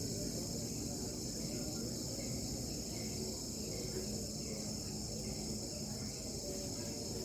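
Crickets chirring steadily, a continuous high-pitched trill, over a low background rumble.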